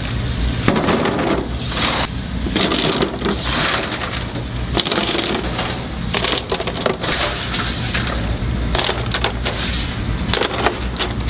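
Hard clams being scrubbed by hand under a running tap: shells clacking and grinding against one another in quick irregular knocks, with water splashing into a stainless steel sink, over a steady low hum.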